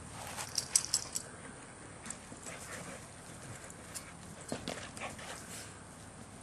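Belgian Shepherd mother and her puppies playing on the ground: scattered short scuffles and small sharp sounds, the loudest a few quick clicks about a second in.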